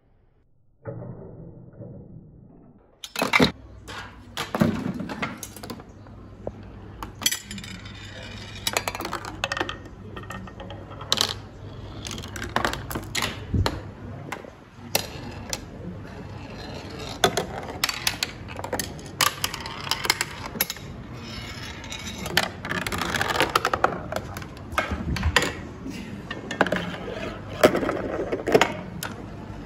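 Marbles and a steel ball running through a Rube Goldberg chain-reaction machine: rolling along wooden, metal and plastic tracks with many irregular clicks and knocks as they drop onto and strike the parts. Near the end a marble rolls round a plastic funnel.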